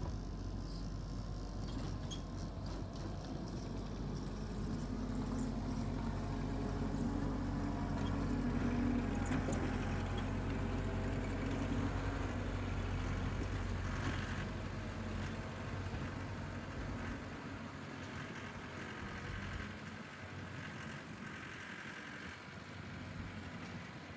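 Tractor engine running steadily as it pulls a power rake over the ground. It grows louder toward the middle, then fades as the machine moves away.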